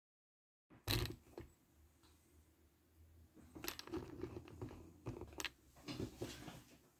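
Faint handling noises after a moment of dead silence: a knock about a second in, then scattered clicks and rustling from about three and a half seconds on, with a sharper click past five seconds, over a faint low hum.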